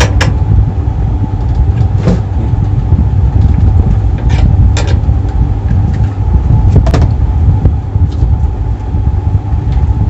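A steady low rumble with a fainter steady hum above it, broken by a few short sharp clicks and taps as the microwave oven's high-voltage diode and its wiring are handled and pulled out by hand.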